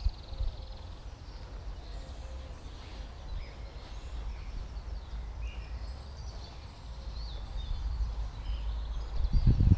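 Outdoor ambience of wind rumbling on the microphone with a few faint bird chirps scattered through; a louder gust of rumble comes near the end.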